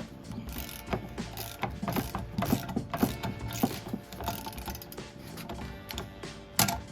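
Socket ratchet wrench clicking in quick runs as bolts are worked loose from an intake manifold, with one louder knock near the end.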